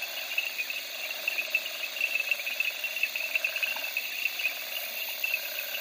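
Okavango Delta wetland field recording: a dense chorus of insects and frogs, each holding its own steady band of pitch. The loudest part is a high, shrill insect trill.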